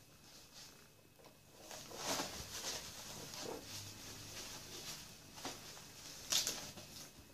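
Soft rustling and scuffling of a puppy and a kitten play-fighting on a cushioned fabric pet bed. It grows busier about two seconds in, and the sharpest rustle comes about six seconds in.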